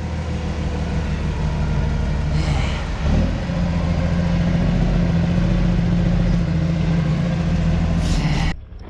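Truck engine running steadily, its pitch stepping up about three seconds in as it is driven harder. The sound then holds steady until it cuts off near the end.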